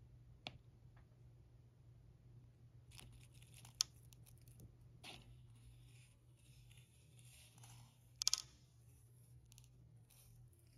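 Faint scattered clicks and rustles from metal feeding tweezers holding a katydid in a plastic enclosure, with two sharper ticks about four and eight seconds in, over a faint low hum.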